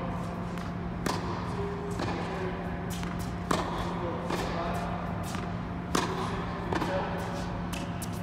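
Tennis racquet striking tennis balls: three sharp hits about two and a half seconds apart, with a few lighter knocks of ball bounces near the end, over a steady low hum inside an indoor dome court.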